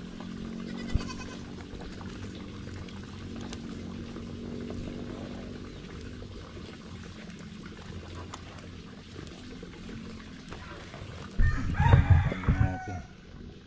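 Goats bleating around a feeding basin, with one loud, wavering bleat close by near the end. A rooster crows in the background.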